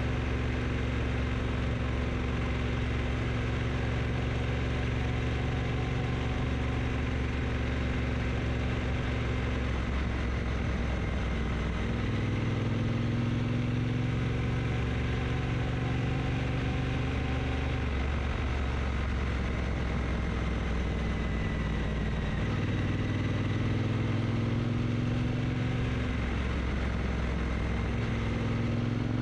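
Triumph T120 motorcycle's parallel-twin engine running while riding. The engine note drops about a third of the way in, then rises several times as the bike picks up speed again.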